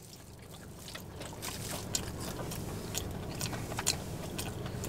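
Close-up chewing of mac and cheese and fried chicken, with sharp mouth clicks about every half second, over a steady low rumble inside a car cabin.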